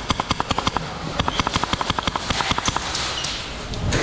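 Airsoft gun firing on full auto in two rapid bursts of about ten shots a second, the second burst longer, ending about three-quarters of the way through.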